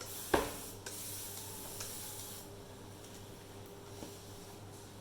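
Spray bottle misting water onto watercolour paper to moisten it: a sharp click about a third of a second in, then a hiss of spray that dies away after about two seconds, with a few faint clicks later.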